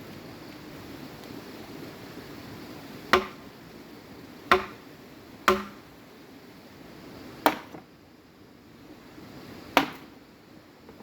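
Five sharp blows of a tool striking bamboo, irregularly spaced a second or two apart, each with a short ringing note after it.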